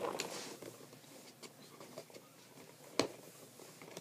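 Fingers picking and pulling at tape on a plastic toy blister package: a brief crinkling rustle, light scratching and scattered small clicks, with one sharp click about three seconds in.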